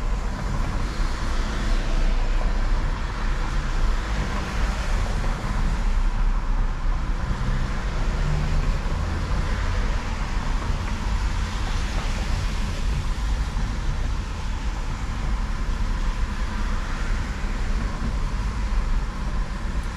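Steady low rumble of a truck engine running, mixed with road traffic noise.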